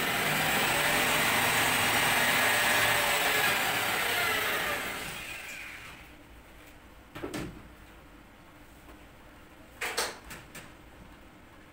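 A power tool runs loudly, then dies away about five seconds in. Two sharp knocks follow, the second with a few small clicks after it.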